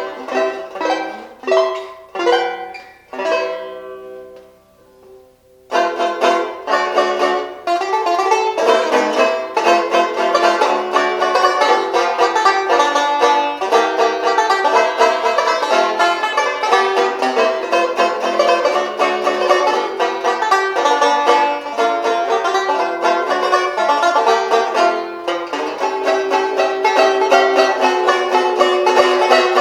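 1927 Bacon & Day Silver Bell No.1 tenor banjo playing a jazz tune. A few chords are struck and left to ring, and one dies away about five seconds in. Then comes a busy stretch of fast picked chords and melody.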